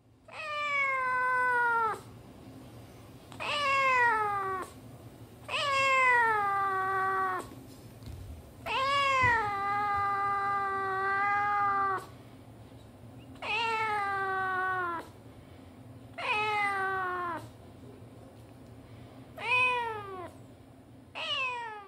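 Domestic cat meowing over and over: about eight long, drawn-out meows, each falling in pitch, with the longest, about three seconds, near the middle and the last one cut short.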